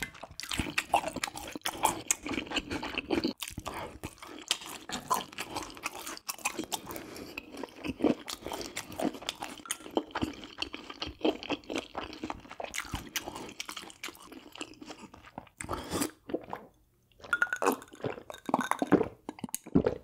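Close-miked chewing of spicy stir-fried baby octopus and beef intestines, with many short wet mouth clicks. Near the end come gulps of water from a glass.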